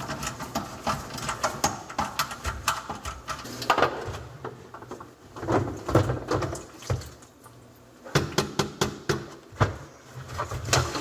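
Irregular clicks, taps and knocks of plumbing parts being handled and fitted under a kitchen sink: the dishwasher drain hose clamp being tightened and the plastic sink trap being refitted to the garbage disposal.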